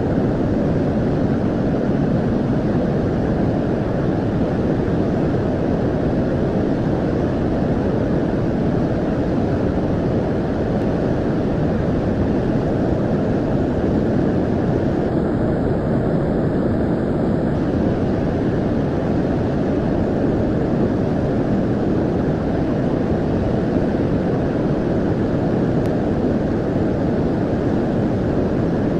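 Continuous heavy roar of rushing floodwater, steady and unbroken.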